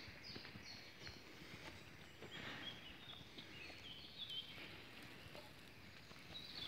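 Quiet woodland ambience: small birds chirping faintly now and then, with a few faint ticks.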